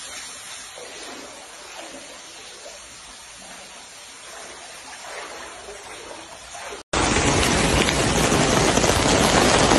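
A faint hiss of water in a flooded room. After a sudden cut about seven seconds in, it gives way to loud, steady heavy rain and rushing muddy floodwater pouring across a road.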